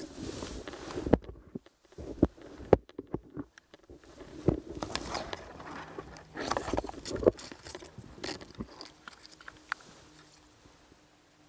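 Irregular rustling, scraping and sharp clicks of handling close to the microphone, dying down to faint background in the last couple of seconds.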